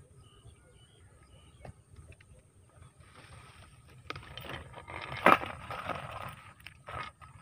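A wire cage rat trap being handled in dry rice stubble: rustling and knocking that grows louder after about three seconds, with a sharp click about five seconds in.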